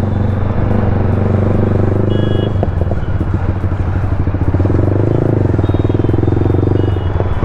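Motorcycle engine running steadily under way, with a few short high beeps about two seconds in and again around six seconds.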